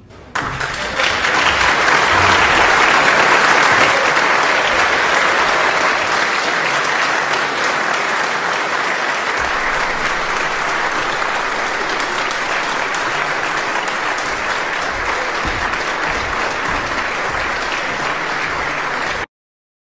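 Audience applauding, breaking out just after the harpsichord's last chord, thick and steady throughout, then cut off suddenly near the end.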